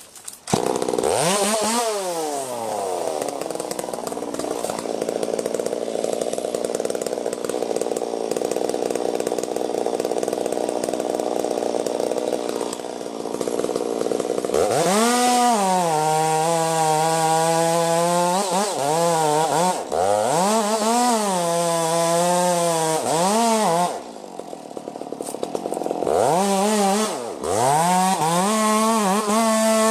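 Chainsaw revving up and then cutting steadily through wood for about twelve seconds. It is then revved up and down repeatedly, holding high speed between revs, with a brief quieter drop a little after the middle.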